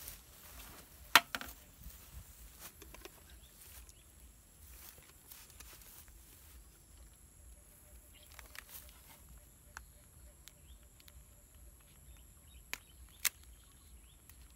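Quiet outdoor field ambience with a faint steady high hum and soft rustling, broken by a few sharp clicks: one loud click about a second in and two more close together near the end.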